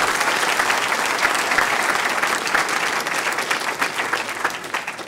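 Conference audience applauding at the end of a talk, a dense spread of hand claps that holds steady and thins out near the end.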